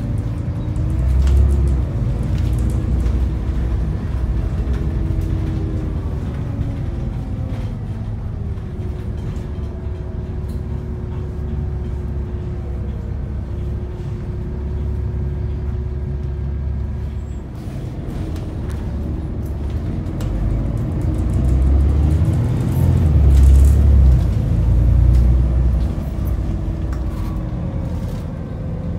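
Diesel engine and drivetrain of an Alexander ALX400 double-decker bus heard from inside the lower deck while under way. The engine note climbs as it pulls, holds steady while cruising, climbs again about twenty seconds in, then drops near the end as the bus slows.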